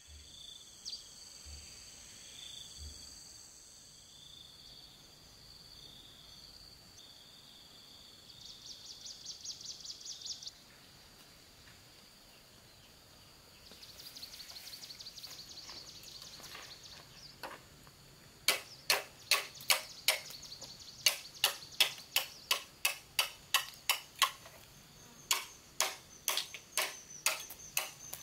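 High, steady insect calls, with a rapid pulsing trill for a couple of seconds about a third of the way in. Then, for the last ten seconds, a blade chops the side shoots off a long bamboo pole: sharp chops, about two or three a second with one short pause. These are the loudest sounds here.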